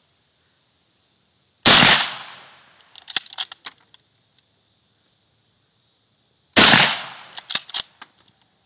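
Two rifle shots about five seconds apart, each a loud crack with a short decaying tail, followed about a second later by a quick run of sharp clicks.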